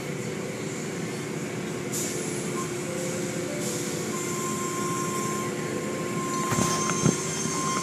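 Automatic car wash heard from inside the car: water spray and cloth strips and foam brushes swishing over the windshield and body, over a steady machinery hum. A thin steady whine joins about halfway through, and a few sharp thumps come near the end as the strips slap the car.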